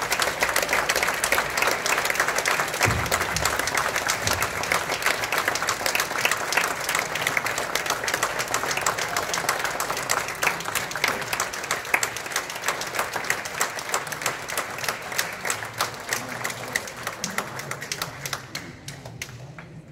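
Audience applauding; the clapping thins out and dies away near the end.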